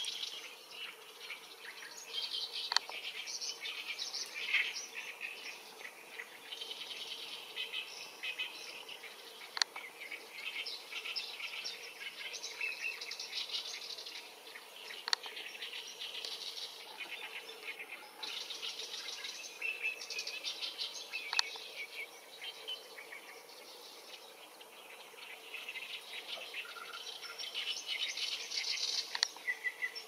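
Wild songbirds singing in overlapping runs of quick, chattering phrases, with a lull before the song picks up again near the end. A few single sharp ticks are scattered through it.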